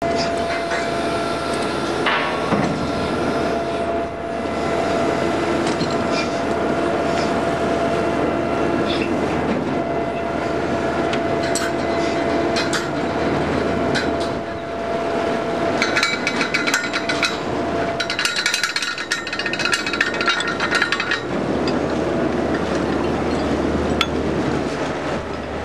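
Trawler deck machinery running steadily, with metal clanking and clinking of trawl chain in a cluster about two-thirds of the way through.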